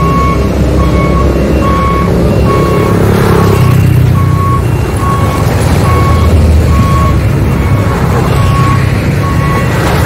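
Reversing alarm beeping at an even pace, about three beeps every two seconds, over the low rumble of passing road traffic: lorries, a van and motorbikes.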